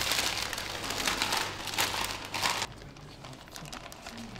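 Plastic piping bag crinkling as it is opened out and handled. The crinkling is loud for about the first two and a half seconds, then drops to quieter rustling with a few small clicks.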